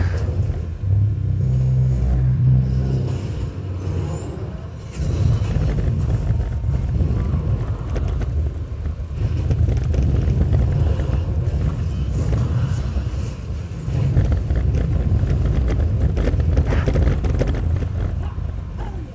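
DUB 10-inch car-audio subwoofer, repaired and running in free air without an enclosure, playing loud deep bass at long cone excursion. The bass notes step in pitch every second or so.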